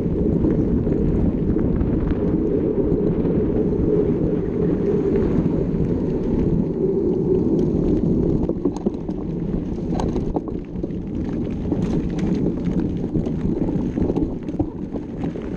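Wind rushing over the microphone of a mountain bike on the move, a loud deep rumble, with scattered knocks and rattles from the bike on rough ground that become more frequent about halfway through.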